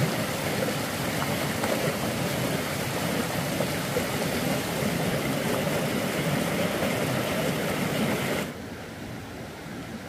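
Steady rush of flowing water, like a swollen stream, that drops abruptly to a quieter hiss about eight and a half seconds in.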